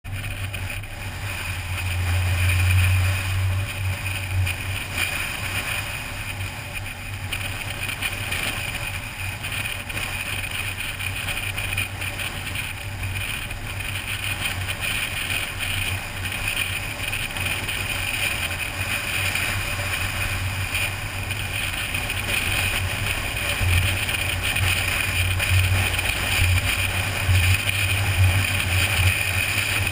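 Car driving at road speed: a steady low drone of engine and tyres with rushing air, picked up by a GoPro mounted on the car.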